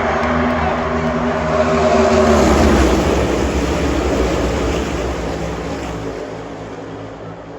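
Pack of NASCAR Cup stock cars' V8 engines going by at full throttle. The sound peaks about two to three seconds in, drops in pitch as the cars pass, then fades away.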